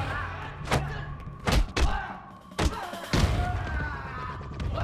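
Hard punch and body-impact thuds of a hand-to-hand fight, about five in quick succession over roughly two and a half seconds.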